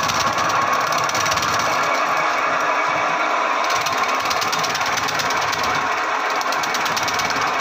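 Homemade electric banana-trunk chopper, its spinning cutter shredding a banana stem as it is pushed in, with a steady, fast chatter.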